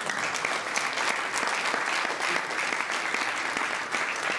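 Audience applauding, a dense, steady clapping from a room full of people.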